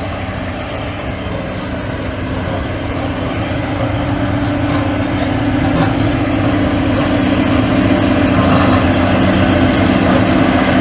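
Narrow-gauge diesel locomotive's engine running as it moves slowly, growing steadily louder as it approaches and passes close by. It has a steady low hum.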